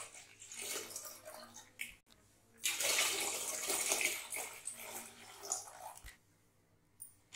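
Milk poured in a thick stream into a large stainless-steel pot, splashing into the milk already in it. The pour breaks off briefly about two seconds in, runs strongest for the next few seconds, and stops about six seconds in.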